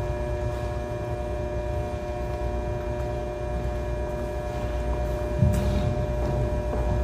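Steady electrical mains hum, with several steady tones over a low, even rumble. There is a short knock about five and a half seconds in.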